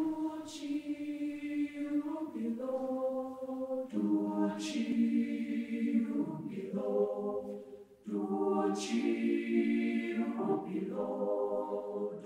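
Intro music of wordless choir-like voices holding slow, sustained chords that change about every two seconds, with a bright shimmering accent at the start of each phrase, about every four seconds.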